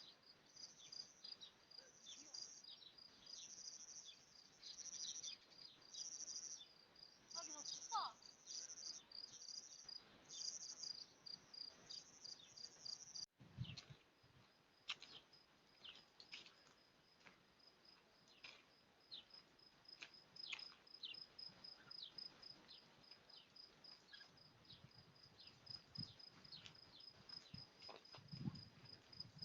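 Faint crickets chirping in a steady, fast, high pulse, with scattered short falling bird chirps over them.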